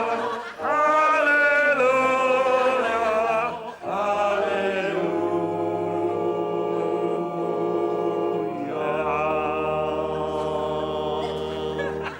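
Choir singing slow, sustained chords, the phrases breaking briefly about half a second in and again near four seconds in.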